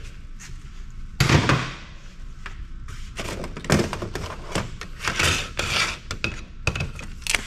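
Hand tools clunking down on a stainless-steel workbench, with a loud thunk about a second in, followed by clicks, knocks and scraping as pliers work at the heat sinks on a circuit board.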